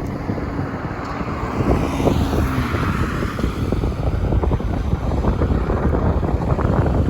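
Strong gusty wind buffeting the microphone, a heavy low rumble throughout. A vehicle passes, its noise swelling and fading about two to three seconds in.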